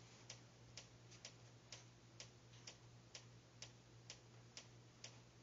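Near silence with faint, evenly spaced ticking, about two ticks a second, over a low steady hum.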